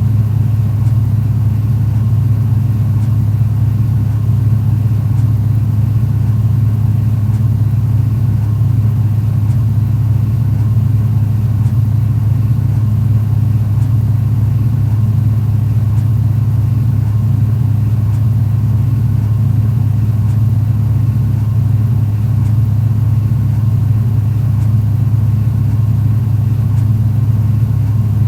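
Pickup truck engine heard from inside the cab, a steady low rumble with no change in pitch; it is an idling recording processed to pass for the truck driving.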